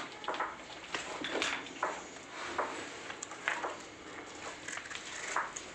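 Hand-milking a desi cow: short jets of milk squirting into a metal pail, an irregular rhythm of about two squirts a second.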